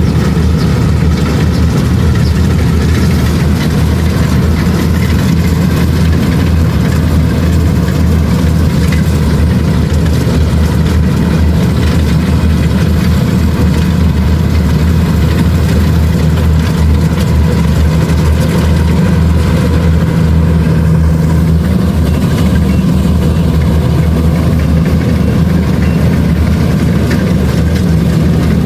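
Kubota DC-70 Plus rice combine harvester running steadily, its diesel engine a constant low drone.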